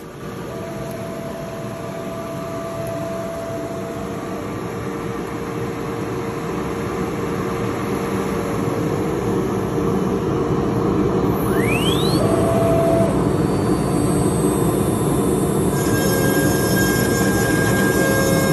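A woodworking machine running under load, a steady noisy machining sound that slowly grows louder, with a brief rising whine about twelve seconds in.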